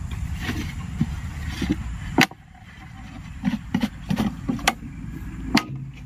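Sharp clicks and knocks as a plastic jar is handled, shaken and tipped out onto grass, over a steady low rumble. A loud click comes about two seconds in and the rumble drops away after it, then a quick run of knocks follows about a second later.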